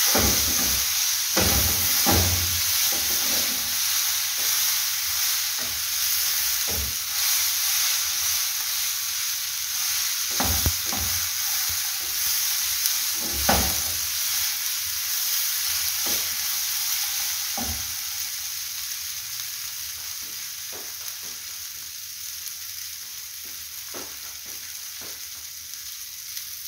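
Dried omena (silver fish) sizzling as it fries in a pan with cooked tomatoes and spices, stirred with a wooden spoon that knocks and scrapes against the pan now and then. The sizzle slowly gets quieter over the second half.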